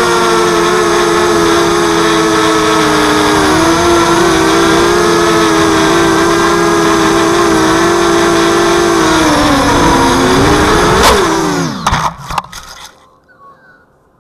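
A 230-size FPV mini quadcopter's brushless motors and propellers whine steadily, the pitch shifting with throttle. About eleven seconds in, a sharp hit is followed by a few knocks as the quad crashes into the grass, and the motors wind down and stop.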